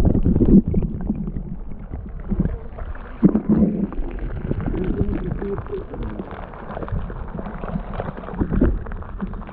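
Underwater sound of a mountain river pool heard through a submerged camera: muffled gurgling and low rumbling of moving water, with scattered clicks and knocks throughout.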